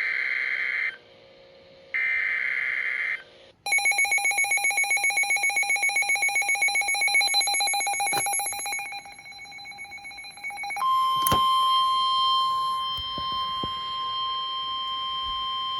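Emergency Alert System tones ahead of a weather warning: two roughly one-second bursts of the SAME digital header data, then about seven seconds of a rapidly pulsing alarm tone, then a steady single-pitch warning tone. The steady tone is the kind of alert tone NOAA Weather Radio sends before a warning.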